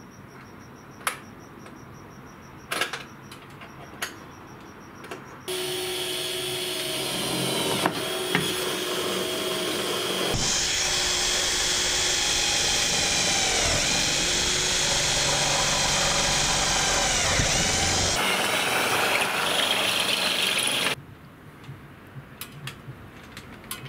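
Cordless drill boring through aluminium mounting rail, running steadily for about fifteen seconds from about five seconds in, its motor pitch dipping and recovering as the bit bites. A few light clicks and knocks of handling come before it starts.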